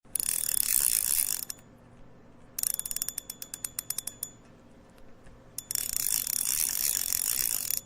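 Fishing reel's ratcheting drag giving line. It buzzes at high pitch twice, with a run of fast clicks that slows down in between.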